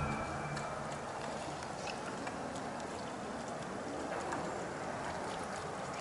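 Steady outdoor background noise with a few faint, scattered clicks.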